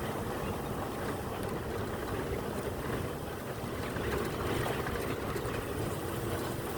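A car in motion: steady engine hum and tyre-on-road noise with a low rumble.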